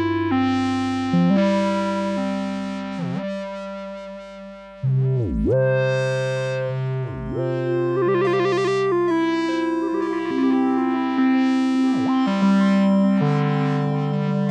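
Synthesizer music: layered sustained tones step through a slow sequence of notes and chords, changing every second or so. A few quick downward pitch swoops break the sequence, and a warbling tremolo comes in about eight seconds in.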